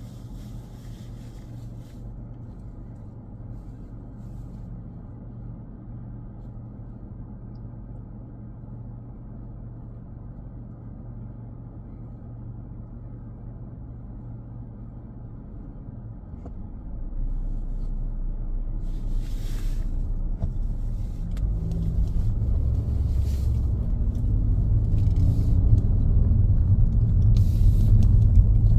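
Car on the move: a steady low engine and road rumble that grows clearly louder a little over halfway through, with the engine's pitch rising as the car speeds up, and a few brief rushing sounds.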